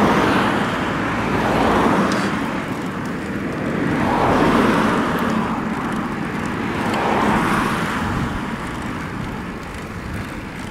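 Road traffic passing on the adjacent road, swelling and fading about three times, over steady wind and tyre noise from a moving bicycle.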